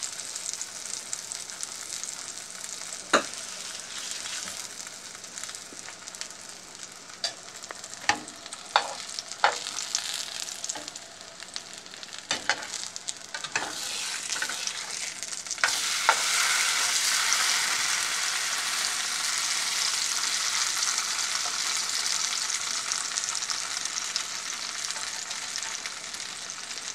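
Folded potato tacos, dipped in red chile sauce, frying in oil in a nonstick skillet with a steady sizzle. Several sharp taps of a metal spatula against the pan come in the first half. About sixteen seconds in, the sizzle grows louder and stays that way.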